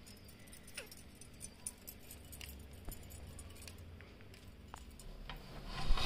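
Faint scattered clicks and light clinks of kitchen crockery, then about six seconds in a louder clatter as a topped roti pizza is slid off a ceramic plate into a frying pan.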